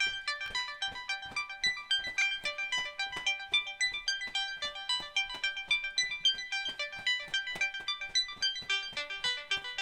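Background music: a bright, plucky keyboard or electric-piano melody over a quick, even beat of about four to five notes a second.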